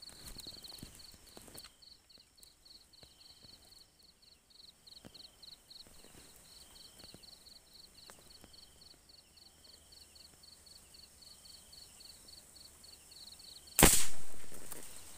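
Insects calling with a rapid, even, high-pitched pulsing chirp, then near the end a single loud gunshot that fades over about a second: the hunter's shot at a bird spotted in the dark.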